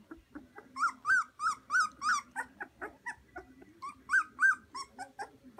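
Young puppies in a litter whining and squealing: a run of short, high, arched squeals about three a second, softer whimpers between, and two louder squeals a little past four seconds in.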